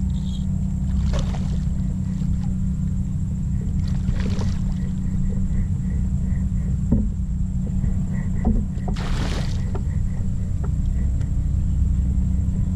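Steady low rumble of wind on an action camera's microphone, with a hooked redfish splashing and thrashing at the surface three times, about 1, 4 and 9 seconds in.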